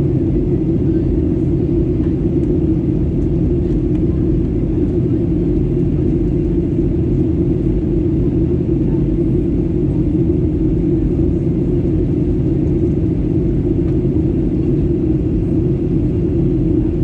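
Steady low rumble inside an airliner's cabin: engine and airflow noise, even and unbroken.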